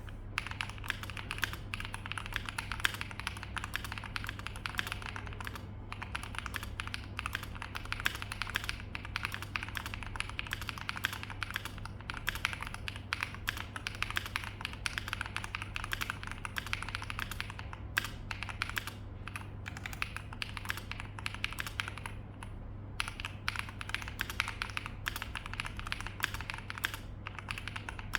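Continuous fast typing on a custom mechanical keyboard with lubed and filmed Aflion Panda switches and GMK Striker keycaps, in an O-ring tray mount with PE foam and dacron dampening. The keystrokes run dense and unbroken except for a few short pauses.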